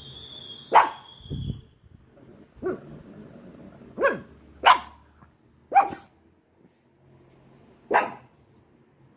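A Pekingese dog barking: about six short, sharp barks at uneven intervals, the first and the ones in the middle the loudest.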